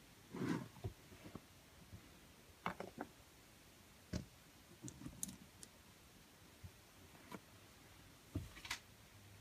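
Faint handling noises: a handful of light taps, knocks and soft clicks as a hand fits the clay-covered top of a Play-Doh surprise egg back onto its plastic-lined bottom half.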